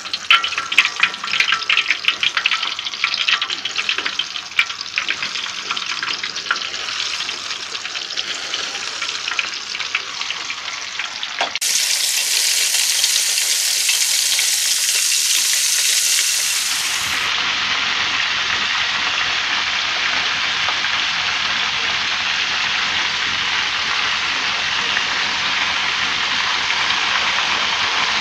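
Flour-coated tiger prawns deep-frying in hot oil in a wok, sizzling with lots of sharp crackling pops as they go in. About twelve seconds in the sound turns abruptly louder and hissier. It then settles into an even, steady sizzle.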